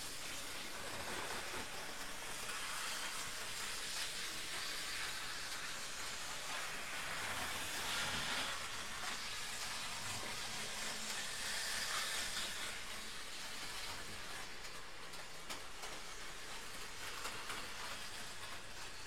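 Model railway train running along the track in reverse at higher speed, its motor and wheels growing louder and softer several times as it moves around the layout, over a steady hiss.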